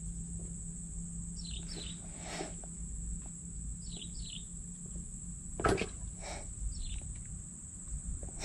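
Swamp ambience: a steady high insect drone with a few short, falling bird chirps, some in pairs. A sharp knock sounds about halfway through, with a weaker one just after.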